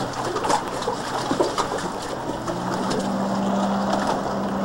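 Jet ski engine running out on the water as the craft heads closer. A steady low engine drone comes in clearly about halfway through, over scattered light clicks and splashes in the first couple of seconds.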